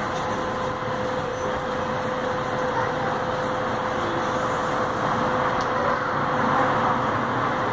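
Steady street traffic noise, mostly from buses standing at the stop, with a steady hum running through it.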